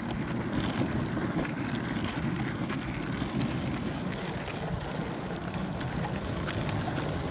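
Longboard wheels rolling on asphalt: a steady low rumble with a few faint ticks.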